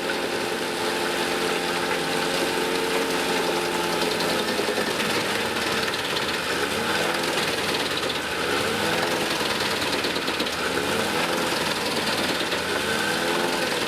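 Tractor-driven wood chipper and its tractor engine running, a steady mechanical drone; from about six seconds in, its pitch swings up and down about every two seconds.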